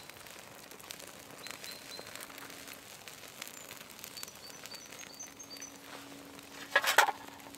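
Small campfire of fatwood sticks and birch bark just catching, with light scattered crackles and pops, and one brief louder noise about seven seconds in. A bird chirps in the background in short high notes in groups of three.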